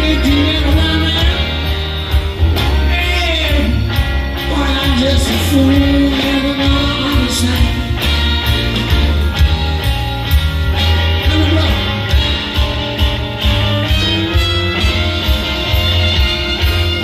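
Live blues band with drums, bass and guitar playing under a lead line from a Hohner Marine Band diatonic harmonica, played cupped against a vocal microphone, its notes bending up and down in a solo.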